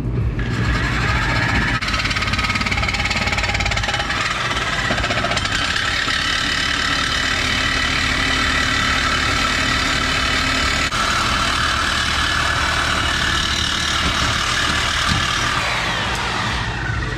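Angle grinder with a cut-off wheel running and cutting through the car's exhaust pipe, a steady high metallic whine that winds down in pitch near the end as the tool is switched off.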